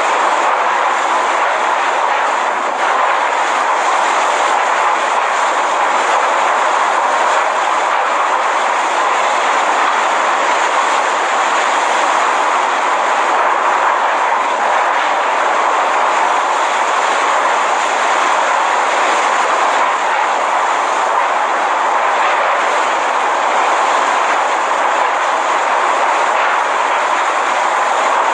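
Category 5 hurricane winds and driving rain: a loud, steady rushing noise without let-up.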